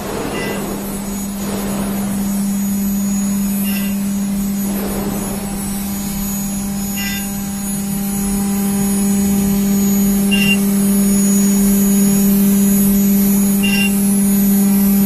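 A CNC engraving and milling machine's spindle runs with a steady hum while a small end mill cuts a relief into a metal block. A brief higher chirp comes about every three seconds, and the sound grows slightly louder after the middle.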